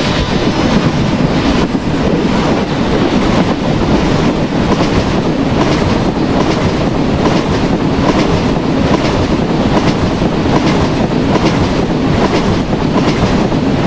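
Express passenger train running at speed, a steady rumble with the wheels clicking over rail joints again and again.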